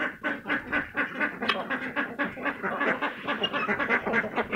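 A flock of domestic ducks quacking, many short calls overlapping in a steady chatter.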